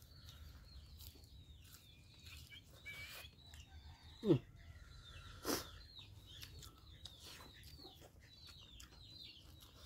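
Close-up eating sounds of people eating curry with their hands: chewing, lip smacks and sharp clicks, the loudest about five and a half seconds in. Small birds chirp steadily behind, and about four seconds in there is one short low sound that falls in pitch.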